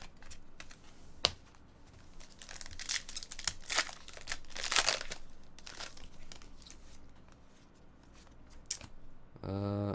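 Foil wrapper of an Elite Extra Edition baseball-card pack being torn open and crinkled by hand. A flurry of sharp crackles comes about three to five seconds in, with lighter clicks of cards being handled before and after.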